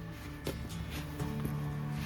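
Background music: held notes over a light, sparse beat.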